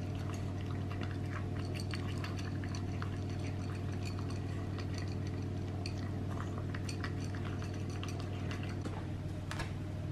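Pug puppy eating dry kibble from a ceramic bowl: quick, irregular clicks and clinks of the kibble against the bowl as it chews, over a steady low hum.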